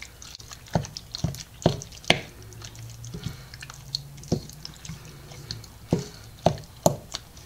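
Wooden spoon stirring fried potato chunks into beaten egg in a glass bowl: wet squelching, with irregular sharp knocks of the spoon against the glass.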